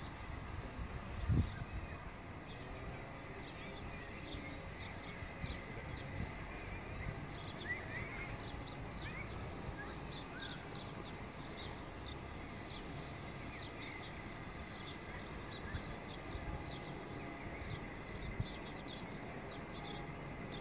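Outdoor background noise with birds chirping many times over a steady low rumble, and a few brief low knocks.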